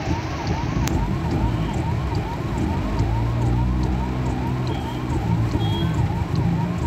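Emergency vehicle siren going fast up and down, about three rises and falls a second, over the noise of traffic moving through flood water. In the middle a car passes close with a low engine hum.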